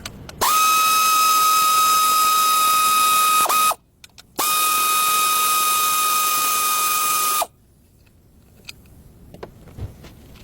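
A power tool running at full speed with a steady high whine and a hiss, in two bursts of about three seconds each, stopping abruptly each time, as used to undo the fasteners during a belt tensioner replacement.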